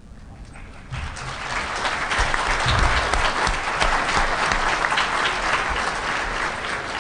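Conference audience applauding. The clapping starts about a second in, swells, then tapers off near the end.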